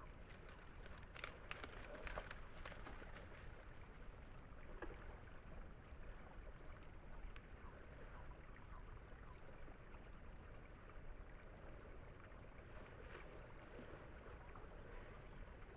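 Faint water running at a beaver dam, with a cluster of short clicks in the first few seconds and a few more near the end.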